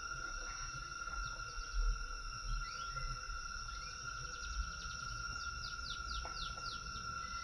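Steady, high insect drone of a forest chorus, with a bird giving a quick run of about five falling notes a little past halfway. A low rumble with a few soft thumps lies underneath.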